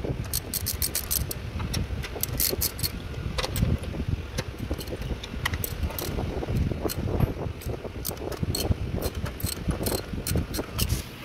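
Ratchet wrench on a long socket extension clicking in quick runs as the engine mount bolts are turned out, with low knocking and handling noise of the tool against the mount.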